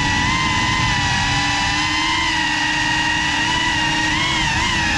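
GEPRC CineLog35 cinewhoop's brushless motors and ducted propellers whining steadily in flight, heard from the drone's onboard camera over a low rumble of prop wash. The pitch rises and wavers briefly about four seconds in as the throttle changes.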